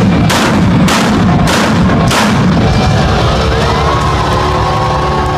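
Rock band's closing hits: four loud drum-and-crash-cymbal strikes about 0.6 s apart, then cymbals and a held chord ringing out.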